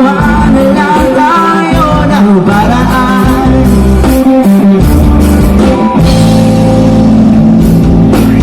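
Loud amplified Filipino pop-rock song: a singer's voice over electric guitar, bass and a drum kit beat.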